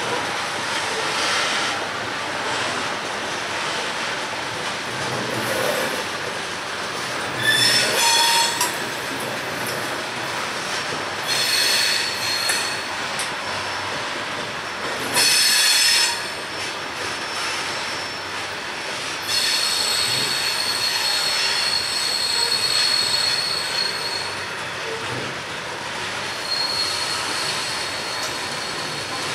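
Loaded coal hopper cars rolling past, their steel wheels running over the rails with a steady rumbling hiss. High-pitched wheel squeal comes and goes: several short squeals, then a longer drawn-out squeal through much of the second half.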